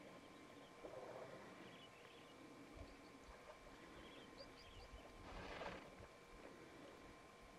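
Quiet waterhole ambience with faint small bird chirps. About five and a half seconds in comes a brief splashing rush as an African elephant squirts water from its trunk into its mouth while drinking.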